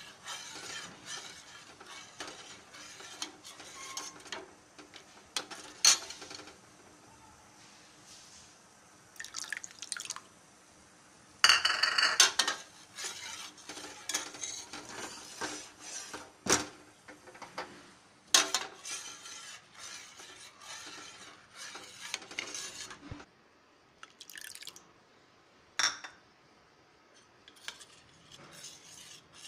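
Steel spoon stirring hot milk in a steel pan, scraping and clinking irregularly against the pan with wet liquid sounds, as lemon juice curdles the milk into chhena. The longest, loudest scraping comes about twelve seconds in.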